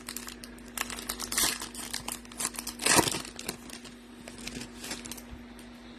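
Foil wrapper of a Topps Chrome hobby pack crinkling as it is torn open and handled, with irregular crackles that are loudest about three seconds in and die away near the end.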